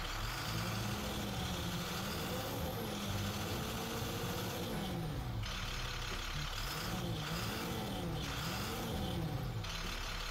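International DT466 inline-six diesel engine running after a new crankshaft position sensor was fitted, its pitch rising and falling several times as the engine speed goes up and down.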